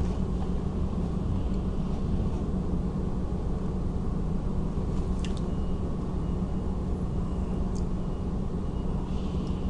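Steady low hum and rumble of room background noise, with faint clicks about five seconds in and again near eight seconds.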